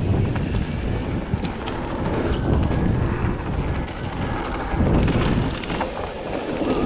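Mountain bike riding fast down a rocky gravel trail: wind rushing over the microphone, tyres rolling over loose stones, and scattered clicks and rattles from the bike.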